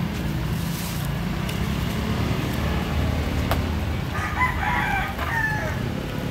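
A rooster crowing once, starting about four seconds in, a call of about a second and a half that falls in pitch at the end, over a steady low rumble of street traffic.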